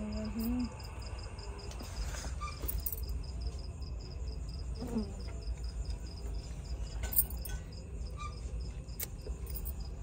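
Cricket chirping in a fast, even run of high pulses, over a steady low hum, with a few faint clicks.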